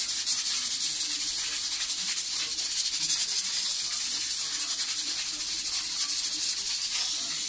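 Pressure cooker at full pressure, with steam hissing steadily out of its weight valve and a faint fast rattle running through the hiss.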